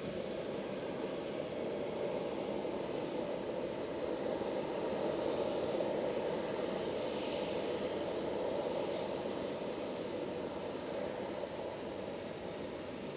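Jet airliner's engines running steadily as it taxis slowly: a continuous rumble and hiss that swells a little in the middle and then eases.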